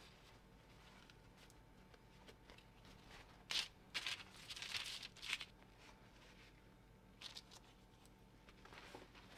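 Baking parchment on a sheet pan rustling and crinkling in short bursts as raw fish fillets are laid onto it, a cluster about halfway through. Fainter crinkles of a paper towel patting the fish follow near the end.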